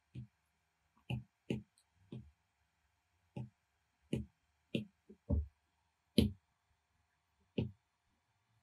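Apple Pencil tip tapping on the iPad's glass screen: about ten short, hard clicks at uneven intervals.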